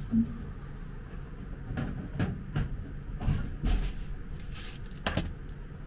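Scattered clicks and knocks of small objects being handled, with the loudest knock about five seconds in, over a steady low hum.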